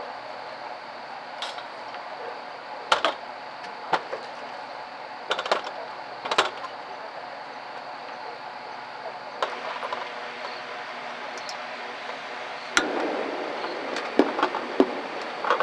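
Scattered sharp clinks and knocks of small hard objects, one every second or two, over a steady background hiss.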